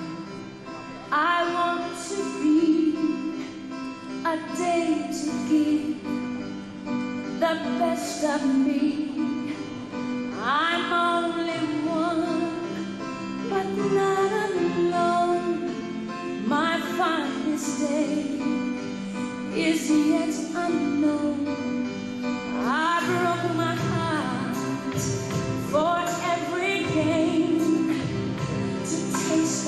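A song: a woman singing over steady instrumental backing, each phrase opening with a rising swoop.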